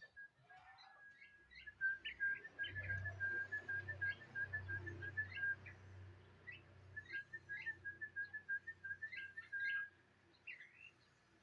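Bird calls: a rapid run of short, high whistled notes at one steady pitch, about five a second, broken by brief rising chirps, with a low hum underneath for a few seconds.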